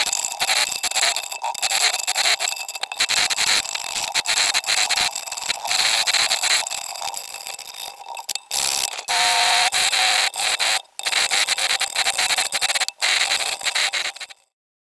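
Flat steel file scraping white plastic fretboard binding flush with the fretboard edge, in rapid back-and-forth strokes with a few brief pauses.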